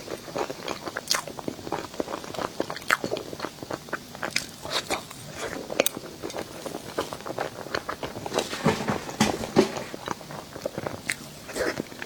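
Close-miked eating of dessert: a person biting and chewing, giving many sharp, irregular clicks and crackles.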